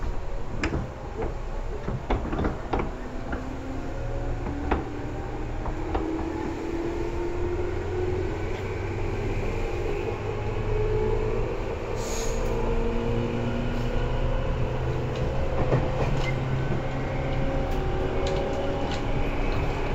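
Tobu 10000 series electric train running: its motor and gear whine climbs slowly in pitch as it gathers speed, over a steady low hum, with scattered clicks of the wheels on rail joints.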